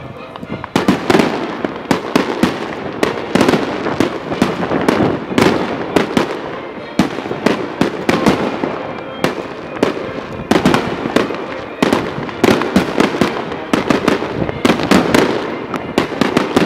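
Fireworks display: aerial shells bursting in a dense, irregular string of loud bangs and crackles, starting about a second in and going on without a pause.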